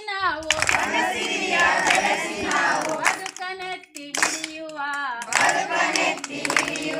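A group of voices singing a Kannada song, with hand clapping and sharp percussive hits between the sung lines.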